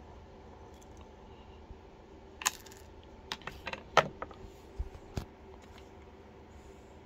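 Scattered sharp clicks and clinks of a screwdriver and small parts against a Jabsco marine toilet's pump housing as a seal is pried out of it and the tools are set down on the table, with the loudest clink about four seconds in.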